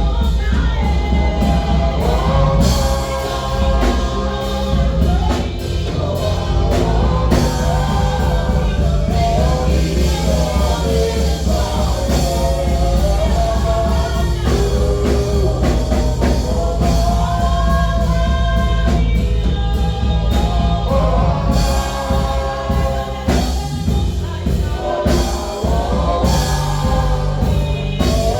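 A gospel choir singing with a live band, loud, with a heavy bass line and drums.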